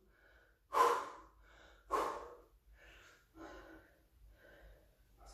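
A man breathing hard while holding an abdominal crunch: two strong exhales about a second apart, then quieter, quicker breaths.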